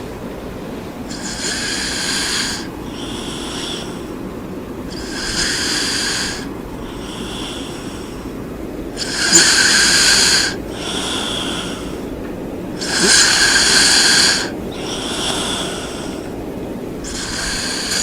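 A sleeping person snoring in a steady rhythm, about once every four seconds: each cycle is a longer, louder breathy snore followed by a shorter, softer breath.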